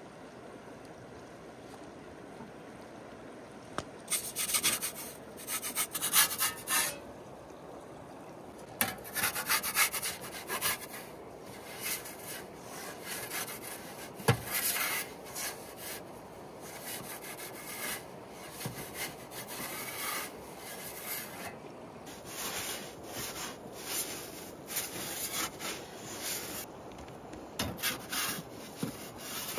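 Irregular runs of short scraping and rubbing strokes, starting about four seconds in, over a steady background hiss. A single sharp knock sounds about midway.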